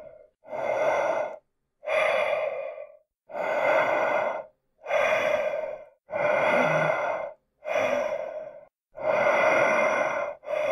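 Repeated breaths, one roughly every second, each just under a second long with short gaps between them.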